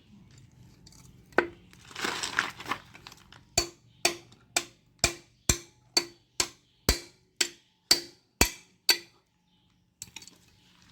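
Hand-tool work on a motorcycle engine cover's fasteners: a single click, a short metallic scrape, then about a dozen sharp, evenly spaced metal clicks, about two a second, each ringing briefly.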